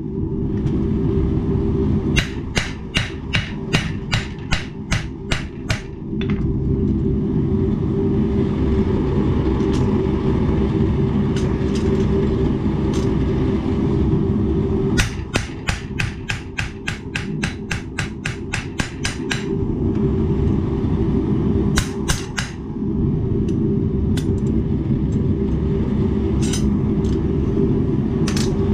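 Hand hammer striking a hot 1095 high-carbon steel knife blade on an anvil as it is forged out: two runs of quick blows, about two or three a second, with a long pause between them, then a few single blows near the end. A steady low rush, the forge running, sounds underneath.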